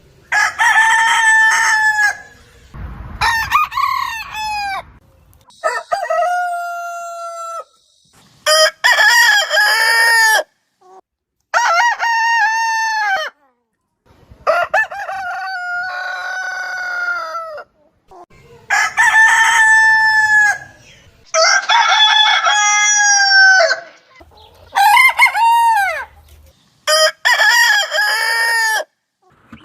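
Roosters crowing, about ten separate crows one after another, each two to three seconds long with short silent gaps between. The crows come from different birds, each with its own pitch.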